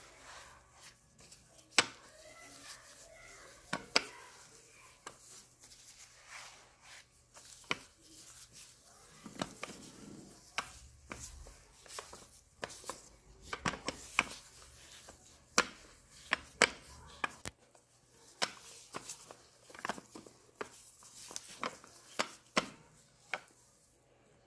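A metal rolling pin rolls out dough on a silicone mat, giving irregular sharp clicks and knocks, one to a few a second, as it is set down and rolled against the surface.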